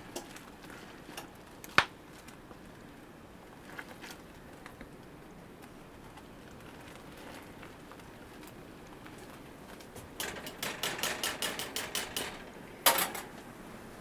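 Spoon stirring cranberries in a large steaming metal stockpot: a few scattered soft clicks, then about two seconds of quick rattling taps near the end and one sharp knock.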